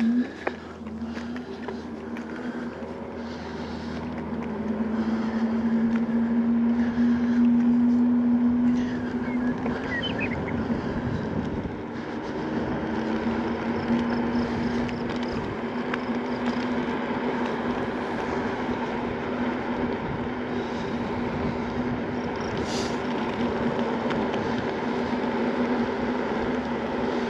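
Segway Ninebot Max G2 electric scooter under way: a steady motor whine over tyre and wind noise on a paved path, getting louder over the first several seconds as it picks up speed, then holding steady. A couple of sharp clicks right at the start.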